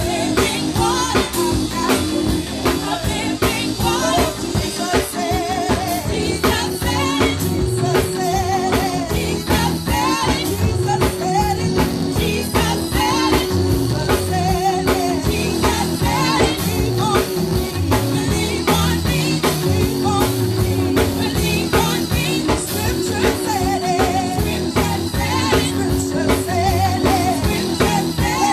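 Gospel praise team singing a worship song over a band, with a drum kit keeping a steady beat.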